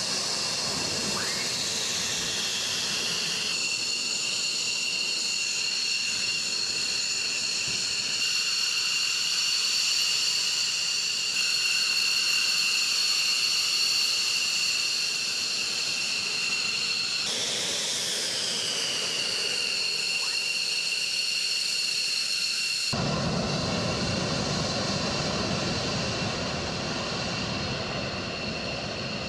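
Twin turbofan engines of F-15E Strike Eagles whining steadily at taxi power, a high multi-toned whine that slides down in pitch twice. About two-thirds of the way through, a deep jet rumble comes in suddenly beneath the whine as an Eagle rolls on the runway.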